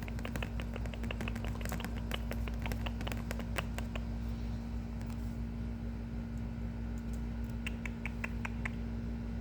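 Quick, light clicks and taps, thick and fast for the first few seconds, then sparse, with a short run of about half a dozen clicks near the end, over a steady low hum.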